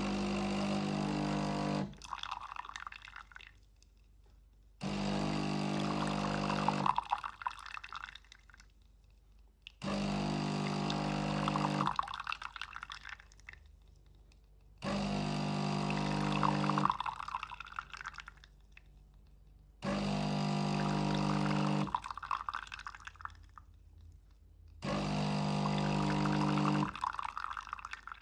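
DeLonghi Magnifica automatic coffee machine's pump buzzing in short runs of about two seconds, six times about five seconds apart, each run followed by coffee pouring and dripping into the mug as it brews a long black.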